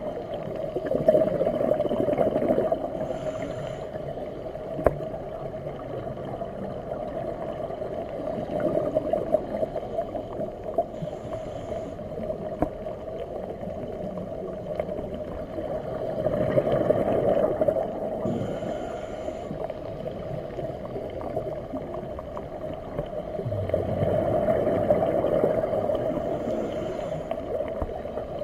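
Scuba diver breathing through a regulator underwater: four bursts of exhaled bubbles rumbling and gurgling, each followed by a brief hiss of inhalation, roughly every eight seconds over a steady underwater hum.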